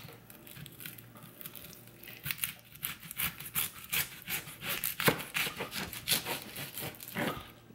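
Kitchen knife cutting an onion on a cutting board: soft scraping and rubbing at first, then from about two seconds in a run of crisp, irregular cuts and taps, several a second.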